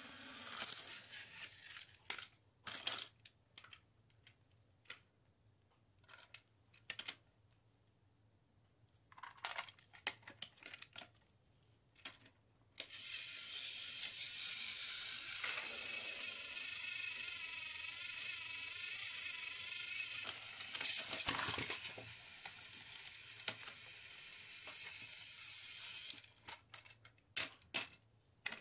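Plastic clicks and knocks as the toy trains are handled on the plastic track. About 13 seconds in, a battery-powered toy train's small electric motor and gears start a steady whirring buzz for about 13 seconds, then stop, followed by a few more clicks.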